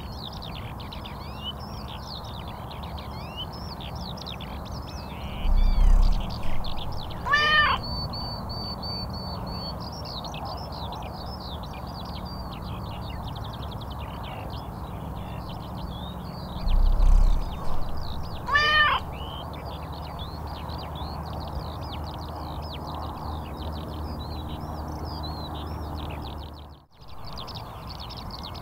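A cat meows twice, about eleven seconds apart, over constant chirping of many small birds and a steady low hum. A loud low rumble comes just before each meow, and the background cuts out briefly near the end.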